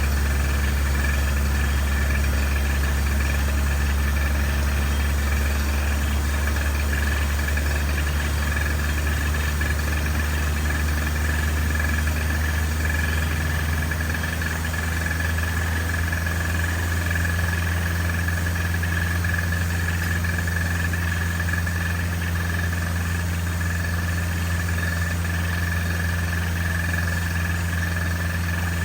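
Engine running steadily at a constant speed, with a slight change in pitch about halfway through.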